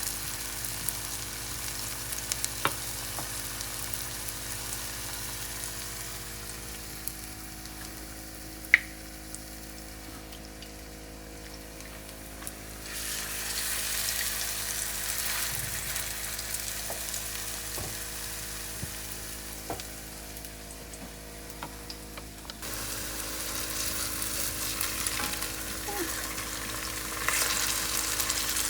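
Potato latkes frying in hot oil: a steady sizzle that eases off and then swells again twice, with scattered small pops. One sharp click about nine seconds in is the loudest sound.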